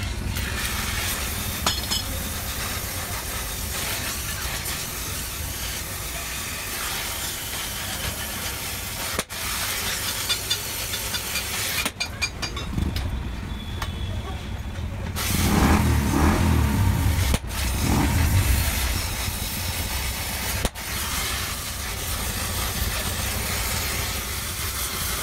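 Steady street traffic and workshop background noise with a constant hiss, and a vehicle passing louder about two-thirds of the way through. The sound cuts out for an instant a few times.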